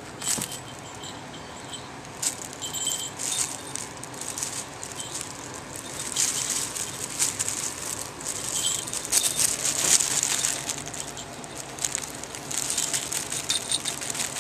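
A plastic bag crinkling and rustling as a kitten rolls and wrestles in it, busiest in the middle, while a small collar bell on the kitten gives short jingles now and then.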